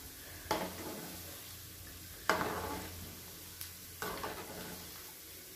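Gulab jamun dough balls deep-frying in oil in a steel kadai, sizzling steadily. A spoon stirs through the oil three times, each stroke a sudden scrape that fades back into the sizzle.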